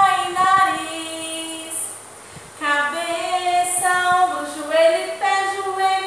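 High female voice singing a children's song, with long held notes; the singing stops for about half a second around two seconds in, then carries on.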